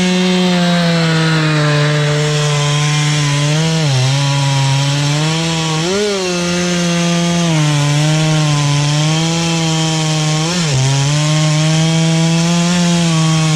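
Husqvarna 365 two-stroke chainsaw running at high revs while cutting through a big log. The engine's pitch wavers and dips briefly about three times as it takes the load.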